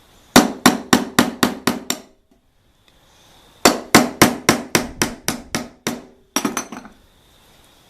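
Hammer blows, about four a second, in two runs with a pause between and a quick flurry near the end: driving a rough-running bearing and its seal out of a Cub Cadet snowblower gearbox housing.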